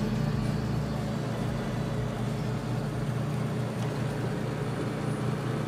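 Inside a moving coach bus: steady engine and road noise, a low even drone.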